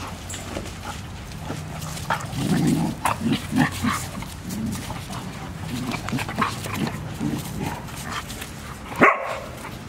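Dogs vocalising while they play-wrestle: a string of short, low, irregular sounds, with one sharper, louder sound near the end.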